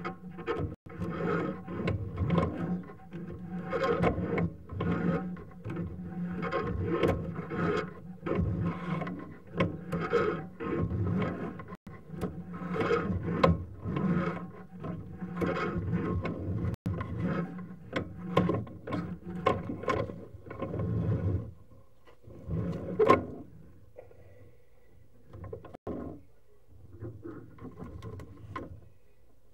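Sewer inspection camera's push cable being drawn back out of the pipe: repeated rubbing and scraping strokes, about one or two a second. The strokes stop a little over two-thirds of the way through, followed by one sharp knock and a few faint clicks.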